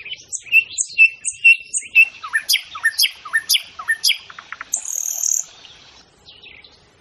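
Wild songbirds singing and calling. First comes a run of short repeated chirps, about two a second, then quick falling whistled notes, then a brief buzzy note near the end.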